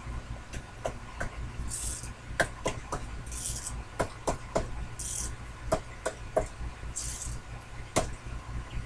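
Sherline mini lathe running with a steady low motor hum while taking a light cut on die-cast aluminum. Irregular sharp clicks and four short hissing bursts, about every second and a half, sound over the hum.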